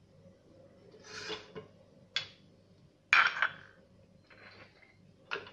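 Kitchen clatter from a plastic blender jug being handled and set onto its base: a few short knocks and rattles, the loudest about three seconds in.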